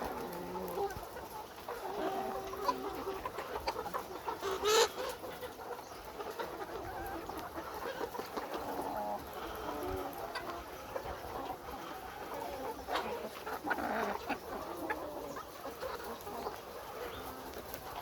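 A large flock of caged laying hens clucking and calling over one another, many short overlapping calls. A sudden loud sharp sound about five seconds in.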